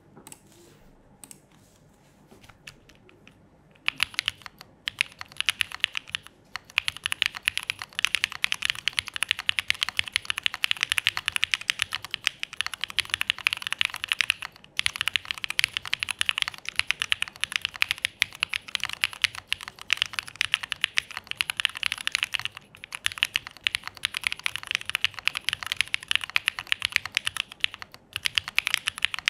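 Fast, continuous typing on a KLC Dolice mechanical keyboard fitted with Pureberry switches, a POM plate, no foam and SWK Foundation keycaps. Only a few faint clicks at first; the dense keystrokes start about four seconds in, with a few brief pauses.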